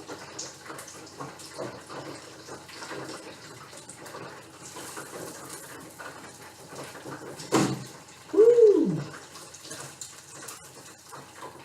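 Beer-battered salmon deep frying in hot oil: a steady crackling sizzle. Past the middle comes a sharp knock, then a short vocal sound that rises and falls in pitch, the loudest thing heard.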